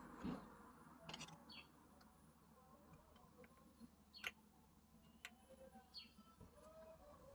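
Near silence: a few faint clicks and taps of small handling at the bench, with a faint short falling chirp from a bird twice.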